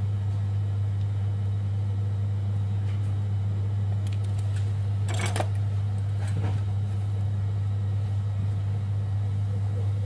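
A steady low hum runs throughout, with a few light clicks and knocks between about four and six and a half seconds in.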